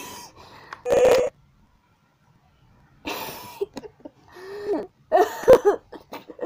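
Electronic Chewbacca mask's built-in speaker playing short Wookiee growls, set off by the wearer opening his mouth against the chin trigger. Several growls come in bursts with pauses between them; the loudest is about a second in.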